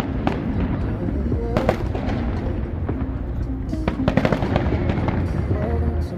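Fireworks going off in several sharp bangs, clustered about a second and a half in and again about four seconds in, with music playing underneath.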